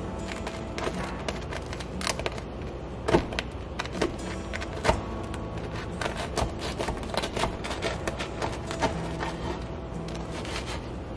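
Serrated bread knife sawing through a crusty round loaf on a wooden cutting board: rasping back-and-forth strokes with the crust crackling, and a few sharper knocks, the loudest a little after three seconds and near five seconds in.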